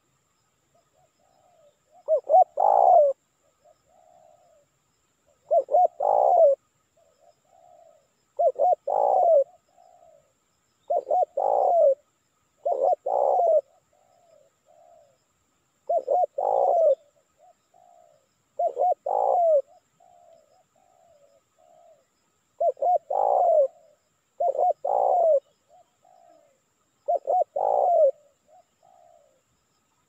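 Spotted dove (tekukur) cooing, used as a lure call for wild doves: about ten loud, rough coo phrases a few seconds apart, each a quick run of notes, with softer coos between them.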